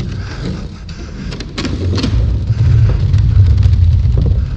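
Low rumble of a dirt jump bike riding over the track, building from about two seconds in and loudest near the end, with a few sharp clicks and knocks from the bike.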